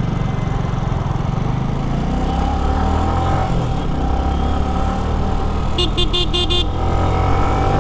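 Yamaha R15 V3 motorcycle's single-cylinder engine running steadily in traffic, rising a little in pitch about two to three seconds in. About six seconds in, a horn gives a quick burst of about six short beeps.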